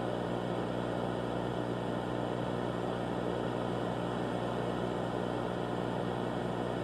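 Steady low electronic hum under a bed of hiss, many even tones layered and unchanging, with no break or event.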